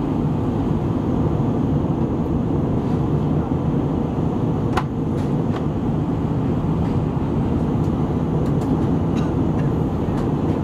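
Steady roar of jet engines and airflow heard inside an airliner cabin in flight, with a few faint clicks.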